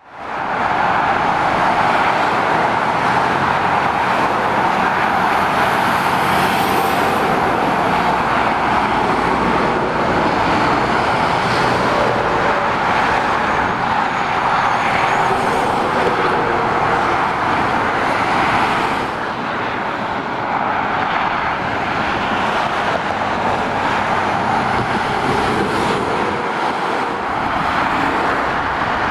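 Steady dual-carriageway traffic noise: lorries and cars passing with a continuous hiss of tyres and diesel engine sound. It fades in at the start and gets a little quieter about nineteen seconds in.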